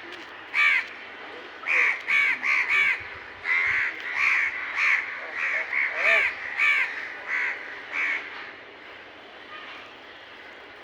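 Crows cawing: a run of about fourteen loud, harsh caws over some eight seconds, then they stop.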